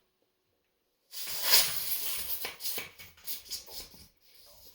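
Compressed air blasting through the bare valve stem of a tubeless bicycle tire as it is inflated with a shop air compressor, a loud rough hiss with sharp clicks and snaps in it. It starts about a second in and stops about three seconds later.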